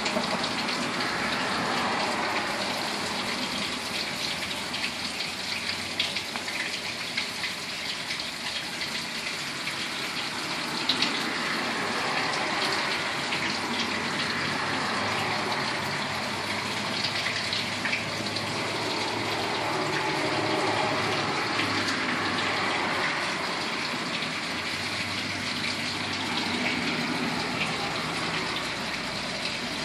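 Steady rush of running water, with a few small splashy clicks and a faint low hum in the middle stretch.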